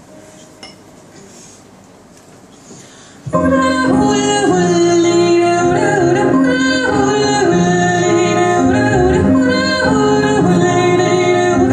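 A few seconds of quiet, then a Nord stage piano and a bowed cello begin abruptly together, with a woman singing over them.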